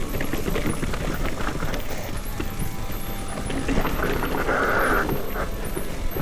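Specialized Turbo Levo electric mountain bike rattling down a rocky bike-park trail: tyres crunching over dirt and loose rocks, with constant clattering ticks and a steady low rumble. A short hissing scrape comes about four and a half seconds in.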